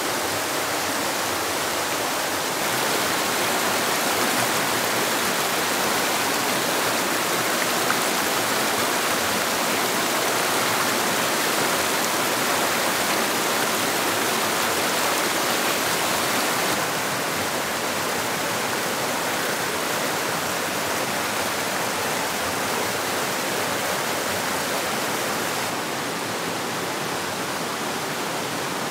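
Rocky stream rushing over small cascades and boulders: a steady, even rush of water. It gets a little louder about three seconds in and a little quieter again near 17 s and near the end.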